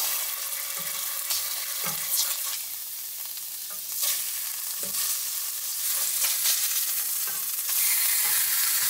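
Bonnethead shark and whiting fillets sizzling as they fry in oil and butter in a skillet, the sizzle growing louder near the end. A few light knocks of a spatula against the pan come as the fillets are turned.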